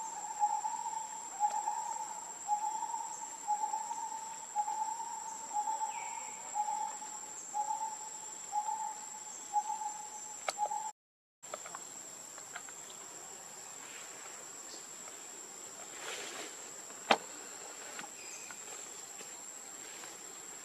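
A bird repeats a short hoot about once a second over a steady, high-pitched insect whine. After a brief cut the hooting stops, leaving the insect whine, and one sharp click comes near the end.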